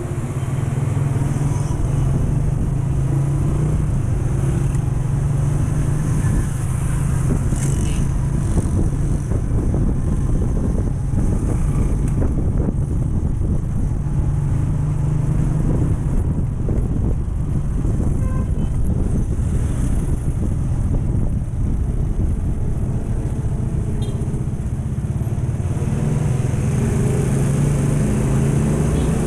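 Motorcycle engine running steadily while riding in city traffic, with wind rumbling on the microphone.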